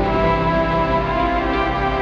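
Background music: slow, sustained instrumental tones over a steady pulsing bass.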